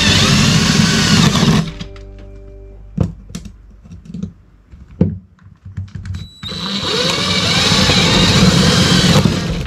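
Cordless drill running as it bores through a ceiling panel, its motor pitch sweeping up and down. It stops about a second and a half in, a few knocks and clicks follow as it is moved to the next spot, and it drills again from about six and a half seconds until just before the end.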